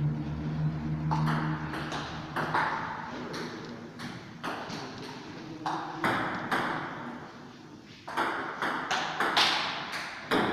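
Table tennis rally: a long run of sharp clicks, about two or three a second, as the celluloid ball is struck by the rubber-faced paddles and bounces on the table. It starts about a second in with the serve and keeps going to the end.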